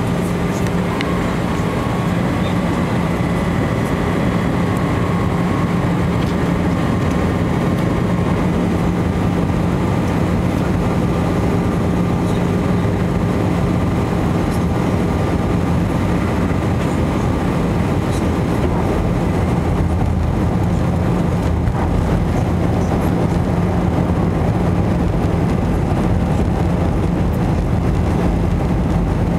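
Steady cabin noise of an EasyJet Airbus airliner in flight: an even rush of engine and airflow noise with a steady low hum and faint steady whines above it.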